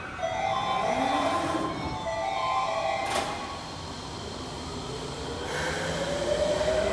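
Subway door chimes from the train and the platform screen doors sounding at once, several tones clashing out of tune. About three seconds in there is a sharp knock as the doors close. A rising whine then builds as the train pulls away, and it cuts off suddenly at the end.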